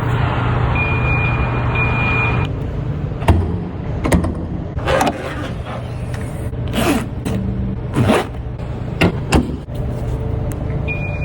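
Ferrari 296 GTB standing with a steady low hum, a steady high-pitched tone near the start, then a string of separate clunks and short whirring sounds, like doors and power windows being worked.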